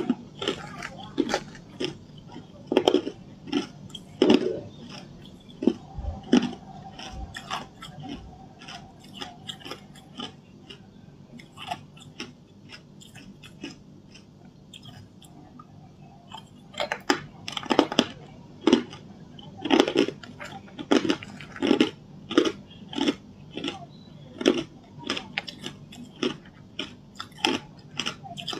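Hard ice being bitten and crunched between the teeth, close to the microphone: a quick run of sharp cracks and crunches that thins out for a few seconds in the middle and comes thick again about two-thirds of the way in.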